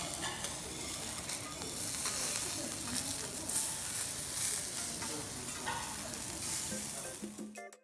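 Food sizzling on a hot teppanyaki steel griddle, a steady sizzle that fades out near the end as light music begins.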